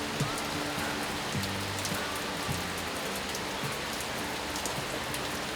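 Steady patter of rain, an even hiss with fine scattered drop ticks, under soft low music notes that thin out after the first couple of seconds.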